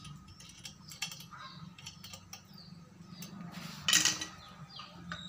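Screwdriver working screws out of an amplifier's metal heatsink bracket: a run of small metallic clicks and ticks, with a louder scraping clatter about four seconds in.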